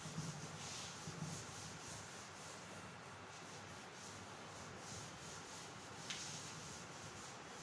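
Chalkboard duster rubbing across a chalkboard in faint, repeated strokes, wiping off chalk writing.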